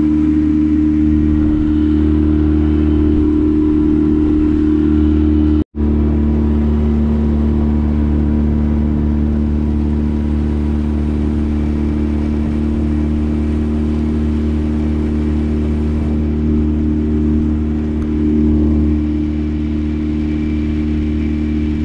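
Boat's outboard motor running steadily at cruising speed, with wind and water noise over it; the sound cuts out for an instant about six seconds in.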